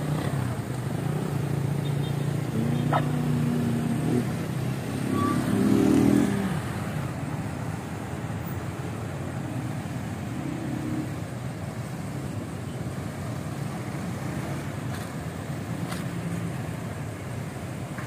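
Road traffic: motorcycles and cars driving past, their engines rising and fading. The loudest pass comes about six seconds in, after which it settles to a steady traffic hum.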